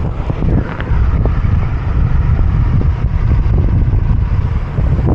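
Wind buffeting the microphone of an action camera on a moving bicycle, a steady low rumble, with motor traffic on a busy road mixed in.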